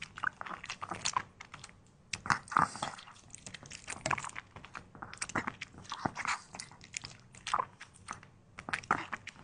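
A puppy crunching and chewing raw vegetables: irregular crisp bites in clusters, with short pauses between mouthfuls.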